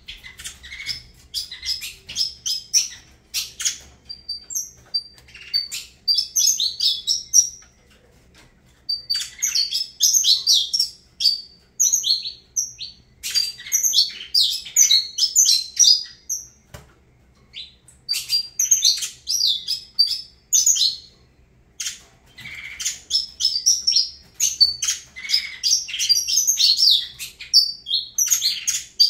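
Saffron finch (canário-da-terra) singing: phrases of quick, high chirps and trills a few seconds long, broken by short pauses.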